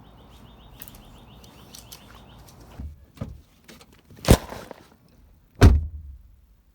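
A faint rapid high chirping trill over light background noise, then a few sharp thumps and knocks, the two loudest about a second and a half apart in the second half.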